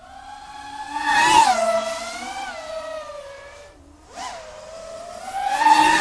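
Drone flying past twice, its high motor-and-propeller whine swelling as it approaches and falling in pitch as it goes by, about a second in and again near the end. There is a quick burst of throttle just after the middle.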